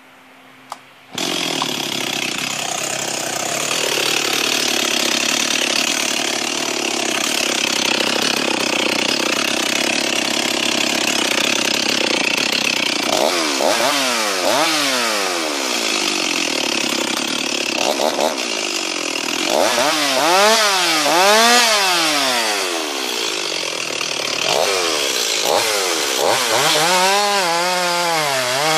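Two-stroke chainsaw engine coming in suddenly about a second in and running steadily at speed. From about halfway it is revved up and down over and over, with quick throttle blips near the end.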